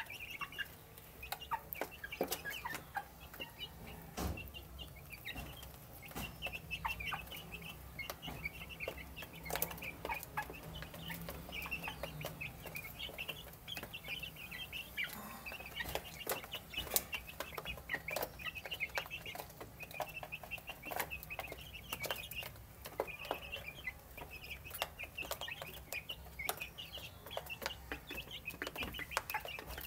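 A flock of young chicks peeping continuously in short high chirps while they eat, with many sharp taps of beaks pecking feed from the tray.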